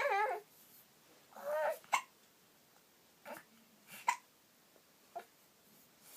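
A one-and-a-half-month-old baby hiccuping: four short, sharp hiccups about a second apart, after two brief wavering vocal sounds near the start.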